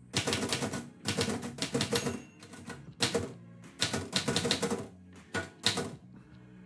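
Typewriter typing in quick bursts of keystrokes with short pauses between them, trailing off into a few single strikes near the end.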